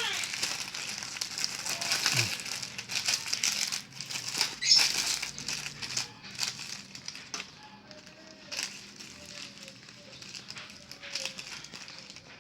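Parcel packaging crinkling and crackling as it is torn open and handled. The handling is dense for the first half, then thins to scattered rustles.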